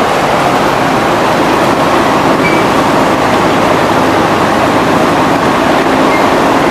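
Sugarcane mill machinery running with a loud, steady mechanical din.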